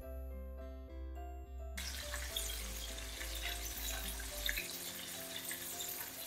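Breaded chicken drumsticks deep-frying in hot oil: a steady sizzle with scattered pops and crackles, starting about two seconds in. Background music plays throughout.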